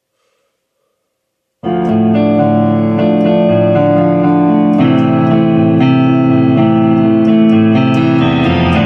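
Solo keyboard music with no drums: sustained, layered chords that change about once a second, starting suddenly about one and a half seconds in.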